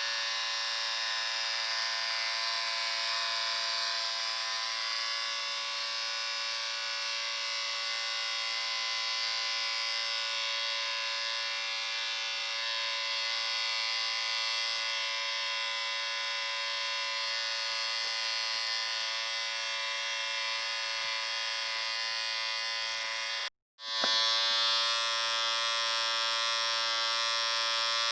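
Electric shaver running with a steady buzz. About four-fifths of the way through it cuts out for an instant and starts again slightly louder.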